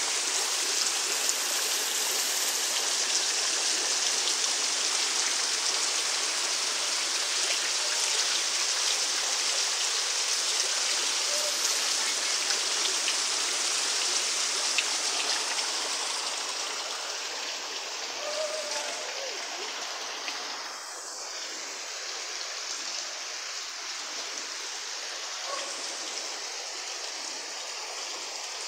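Heavy rain pouring onto a flooded street, a dense steady hiss of drops striking standing water. It grows softer and duller about two-thirds of the way through.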